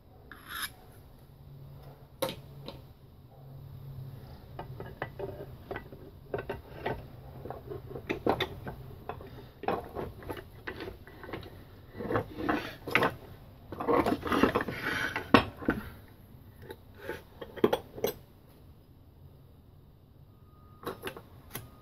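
Metal parts of a Cardinal 6B Speed-Vise clinking, scraping and knocking as the movable jaw and screw are fitted into the vise body, in irregular clicks that grow busiest and loudest just past the middle. A low hum sits under the first half.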